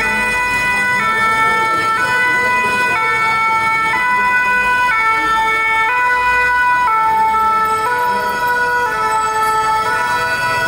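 Fire truck two-tone siren, alternating high and low notes about once a second as the fire engines approach; the tones of a second siren overlap it in the later part.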